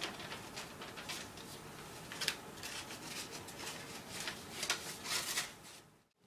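Paper rustling and crackling as a letter and a small booklet are handled and opened, in short irregular crackles; it stops suddenly near the end.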